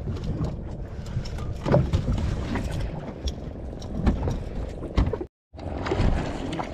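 Wind rumbling on the microphone aboard a small fibreglass fishing boat, with knocks of gear being handled on the deck. The sound drops out briefly a little after five seconds, then the rumble resumes while a hooked king fish splashes at the surface and its line is hauled in.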